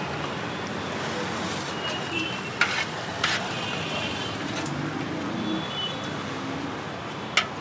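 Steel ladle clinking sharply against a large steel curry pot a few times as curry is scooped and served. Behind it runs a steady hum of road traffic, with faint murmuring voices.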